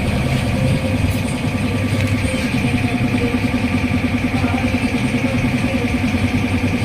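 A small engine or motor running steadily, with a fast, even pulse.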